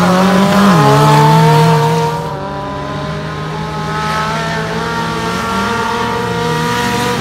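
Off-road 4x4 race vehicle's engine running hard: its pitch drops sharply about half a second in, then climbs slowly as it pulls again, with a smaller dip near the end.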